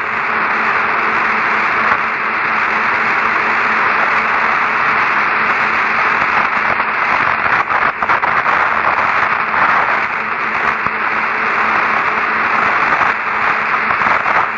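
Steady hiss of radio static on a narrow voice-band communications channel, with a faint low hum under it and no voices coming through.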